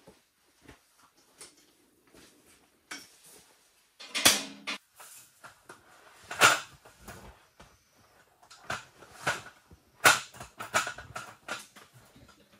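Intermittent handling noise: soft clicks and rustling, broken by three louder sharp knocks about four, six and a half and ten seconds in.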